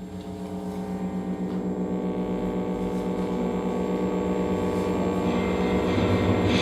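Opening of a recorded electronic track: a sustained droning tone with many harmonics fades in and swells steadily louder with a fast pulse, and a hissing noise layer joins near the end.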